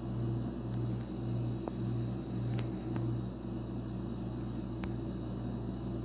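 A steady low machine hum, pulsing about twice a second for roughly the first three seconds and then running evenly, with a few faint ticks.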